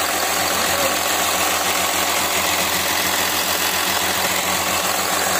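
Kia Mohave diesel V6 engine idling steadily with the air conditioning switched on. It is running on a newly replaced belt tensioner, with no noise from the tensioner.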